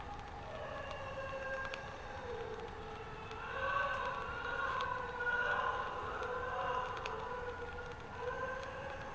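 Several children screaming at once in long, overlapping, wavering wails, an eerie creepy-sound-effect chorus that swells louder about a third of the way in.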